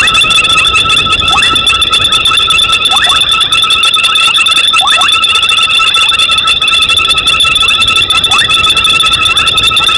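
Night chorus of calling frogs and insects: a continuous shrill trilling at several steady pitches, cut through every one and a half to two seconds by short chirps that slide downward, often in quick pairs.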